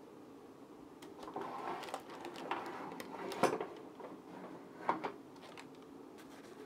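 A metal spoon scraping and knocking against a stainless-steel saucepan of melted garlic butter: a few faint, scattered scrapes and clinks, the clearest about three and a half seconds in and again near five seconds.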